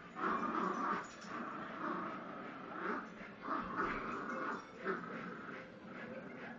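Dogs playing tug of war over a cloth, with repeated short bursts of dog vocalizing, about one a second: play noises while pulling.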